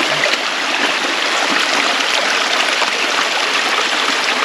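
Heavy runoff after a downpour rushing and splashing steadily down a rock-lined drainage ditch.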